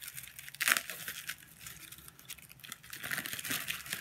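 Plastic bubble wrap crinkling and crackling as it is pulled open by hand, a run of small irregular crackles with the loudest about three-quarters of a second in.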